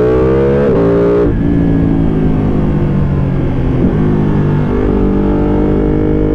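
Ducati Panigale V2's 955 cc Superquadro twin, through an open Mivv twin-outlet exhaust with no dB killer, revving up under hard acceleration. Its pitch drops sharply twice about a second in with quick gear changes, then it runs at a steadier pitch as the bike rolls off.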